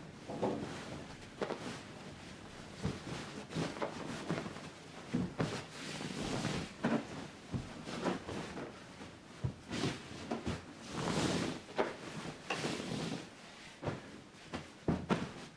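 Household tidying sounds: a run of irregular knocks, clunks and rustles as things are handled, moved and set down, with a couple of longer swishing or scraping sounds lasting about a second each.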